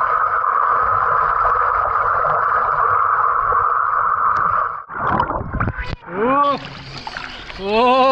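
Muffled rush of swimming-pool water sloshing for about five seconds, then a few splashes. Near the end a person gives two drawn-out 'ooh' calls, rising and falling in pitch.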